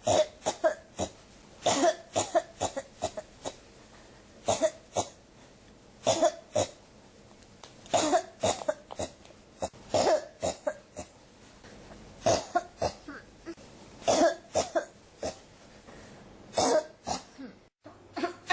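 A person coughing over and over, in fits of two or three quick coughs, a new fit every couple of seconds.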